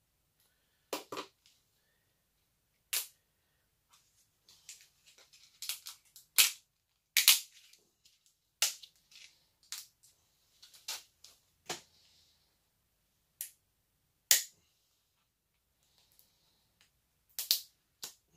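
Plastic tub cracking and snapping as a blade cuts and pries it apart to free a cured silicone block that has stuck to its walls: many short, sharp cracks at irregular intervals, the loudest a little past the middle.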